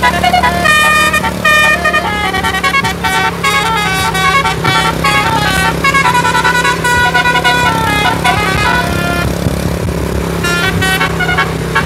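Tour bus's DAV musical air horn (a 'telolet' horn) playing a fast tune of rapidly changing notes, with the bus engine's steady low hum underneath. The horn drops out for about a second near the end, then starts again.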